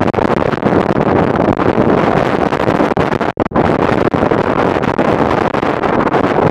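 Wind blowing across the camera's microphone: loud, steady noise that cuts out briefly about three and a half seconds in.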